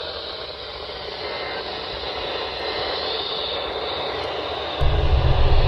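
Steady radio static hiss. About five seconds in, a loud low rumble starts suddenly and drowns it.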